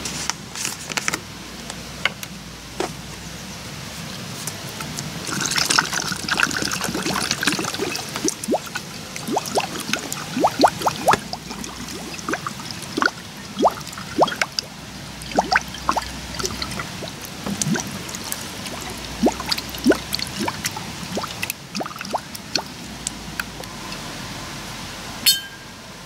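Water being poured from a plastic canister through a plastic funnel into a glass swing-top bottle, a steady splashing pour with many short rising glugs as the bottle fills. A single sharp click near the end, as the swing-top stopper is snapped shut.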